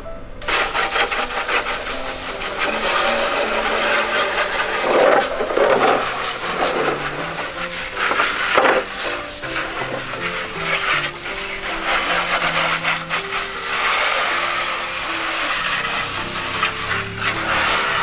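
Spray of water from a garden-hose nozzle hissing onto a soapy black plastic air-conditioner fan shroud, rinsing the detergent off, starting just after the opening and swelling as the jet moves over the part. Background music plays under it.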